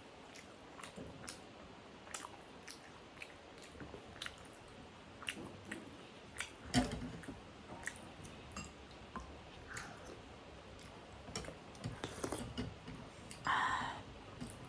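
Close-miked eating of chicken momo dumplings: soft chewing with many small wet mouth clicks. There is a louder knock about seven seconds in and a short noisy burst near the end.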